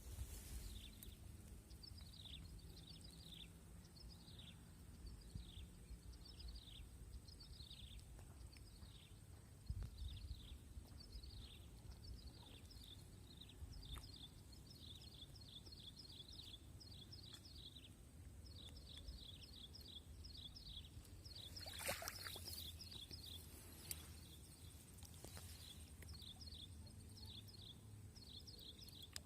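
Faint outdoor ambience: a bird giving a long run of short, high, downward-sweeping chirps, several a second with brief pauses, over a steady thin high tone.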